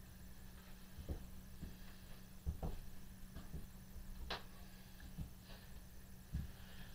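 Scattered light knocks and clicks as a DRO scale and its mounting bracket are handled and positioned against a mill table, over a steady low hum.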